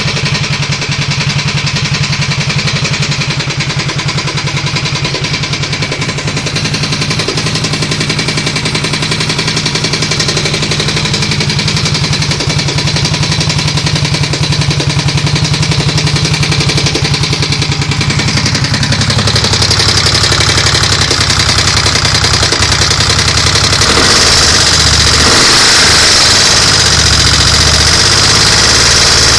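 Suzuki Savage's single-cylinder four-stroke engine idling steadily, carrying a small unidentified noise that the owner wonders could be the valves or the timing chain. About two-thirds of the way through it gets louder and hissier.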